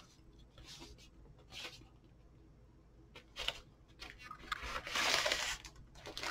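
Cardboard LP record jacket being handled and turned over with faint scuffs, then a vinyl record in its paper inner sleeve sliding out of the jacket with a papery rustle about four and a half seconds in.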